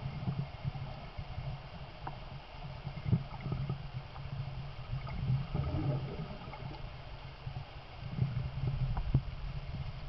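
River current heard underwater: a muffled low rumble and gurgle, with a few sharp knocks, the loudest about three seconds in and again near the end.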